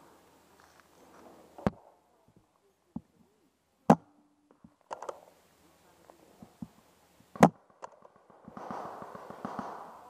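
Paintball marker shots: sharp single pops, the loudest about four and seven and a half seconds in, with lighter clicks between them. A spell of rustling comes near the end.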